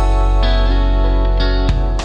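Instrumental background music: a chord struck at the start and held over a deep bass, with a new note coming in near the end.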